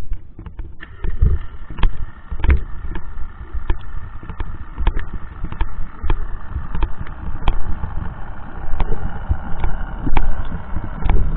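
Boat engine and propeller heard underwater through a camera housing: a steady muffled rumble with a high steady whine over it, and scattered sharp clicks and knocks.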